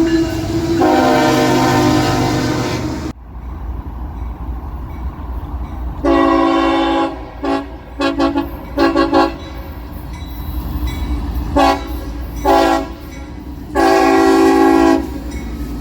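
Locomotive horn sounding a chord in a horn show. A long blast breaks off abruptly about three seconds in. It returns with a long blast, then a quick run of short toots, two more short toots, and a final long blast near the end, over a steady low rumble.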